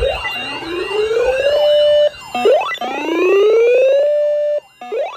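Electronic siren sounding. A tone rises steadily for about a second and a half and holds, then cuts off and starts rising again, several times over.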